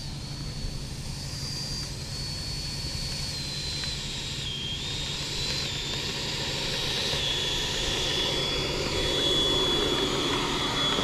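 Twin 90mm electric ducted fans of a Freewing F-22 Raptor RC jet whining at taxi power. The pitch steps up and down with the throttle, and the whine grows louder as the jet taxis closer.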